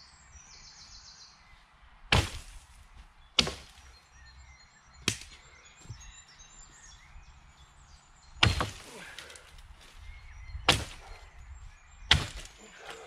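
Axe chopping branches off a felled tree: six sharp chops at uneven intervals, some a second and a half apart, others three seconds apart.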